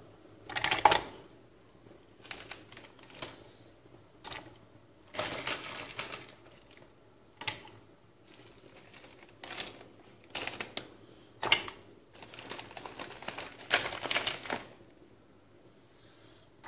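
Handling noise: irregular bursts of clatter and sharp clicks, some brief and some lasting about a second, with short quiet gaps between them.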